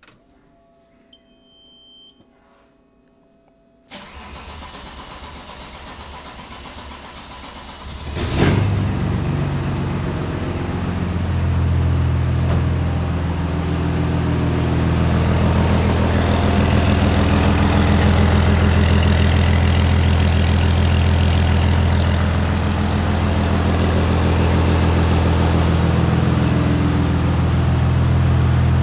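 Audi 2.5 V6 TDI diesel engine's first trial start after reassembly, running with no exhaust or downpipe fitted. A short electronic beep sounds about a second in. The starter cranks for about four seconds, then the engine catches and settles into a loud, steady idle.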